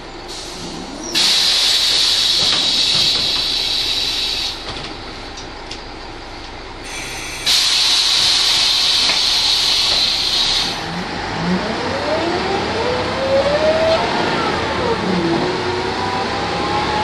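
Ikarus 280 articulated bus: two loud compressed-air hisses of about three seconds each, starting suddenly about a second in and again about seven seconds in. Then its Rába D10 diesel and ZF automatic gearbox pull away, the pitch rising, dropping at a gear change and rising again.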